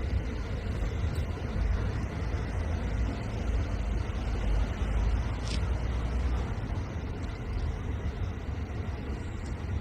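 Steady low vehicle rumble, with no distinct events or changes.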